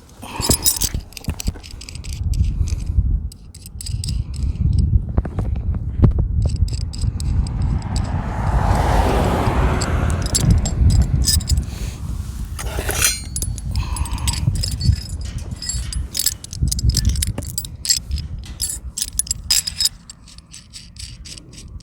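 Slide bolt latch hardware (bracket, bolts and nuts) clinking and scraping against a tubular metal gate as it is fitted by hand, in many scattered clicks over a low rumble, with a longer scraping rustle around the middle.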